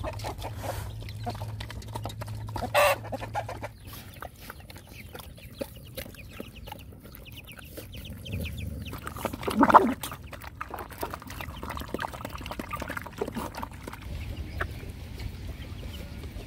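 Dogs eating wet rice from a shared metal basin, with steady small clicks of chewing and lapping, while chickens cluck around them. Two louder calls stand out, one about three seconds in and one near the middle.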